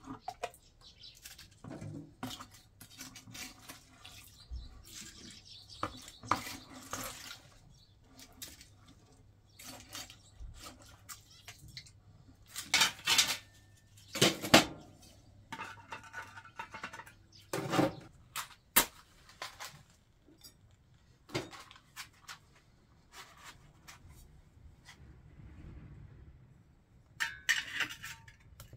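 Cast-iron stove-top rings and lids clanking and scraping as they are lifted and set in place with a metal lid lifter. The knocks come one by one with pauses between them; the loudest come in a cluster about halfway through and again near the end.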